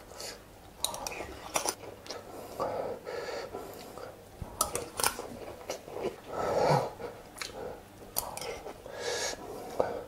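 Close-up chewing of sauce-coated balut (boiled fertilised duck egg), with irregular mouth clicks throughout and one louder stretch about two thirds of the way through.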